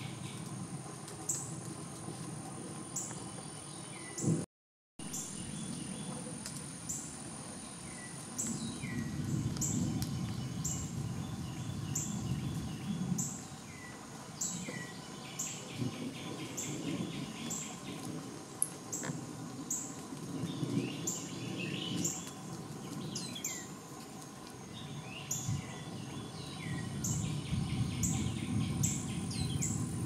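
Birdsong: a bird repeating short, sharply falling whistled notes, about one or two a second, with buzzy trills in between, over a low ambient rumble. The sound cuts out briefly about four and a half seconds in.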